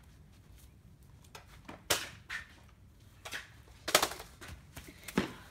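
Nerf blasters firing foam darts: two loud sharp pops about two seconds apart, with a few fainter clicks between and after.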